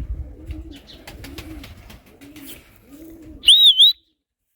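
Domestic pigeons cooing in a repeated series of low calls, with some wind rumble. About three and a half seconds in, a loud, high, warbling whistle sounds for half a second, then everything cuts off suddenly.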